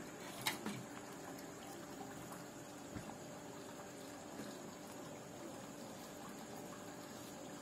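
Low, steady background hiss with a constant faint high whine, broken by a few small clicks and taps, the sharpest about half a second in.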